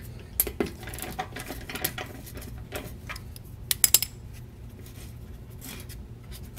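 Metal wrench clicking and clinking on the bolts of a plastic engine undertray as they are loosened, in irregular sharp clicks with a quick cluster about four seconds in, over a low steady hum.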